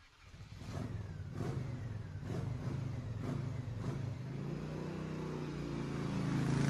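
A motor vehicle engine running, fading in from silence and rising slowly in pitch, with faint regular knocks about every second.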